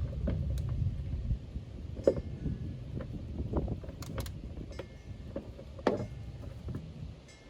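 Hand tools working on a car's panel screws: a continuous mechanical rattle that stops after about a second and a half, then scattered metallic clicks and taps as screws and tools are handled.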